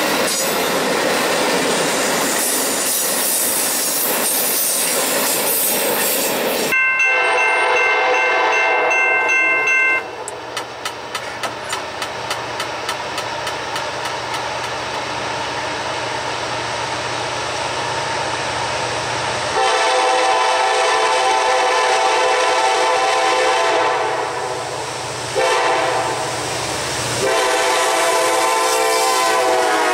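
Amtrak passenger cars passing close, wheels rumbling and clattering on the rail. About seven seconds in this gives way to a Kansas City Southern diesel locomotive leading a freight train. Its air horn sounds a chord of several notes, faint at first. Then come regular wheel clicks and a low engine drone, and from about twenty seconds in, several long, loud horn blasts as the locomotive passes close.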